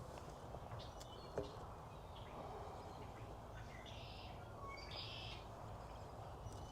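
Faint outdoor background with distant birds chirping now and then, and one small click about a second and a half in.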